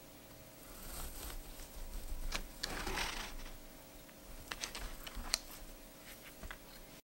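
Serrated bread knife sawing through a baked loaf cake, a scratchy rasp with crisp little clicks from the crust and the baking paper beneath. It stops suddenly near the end.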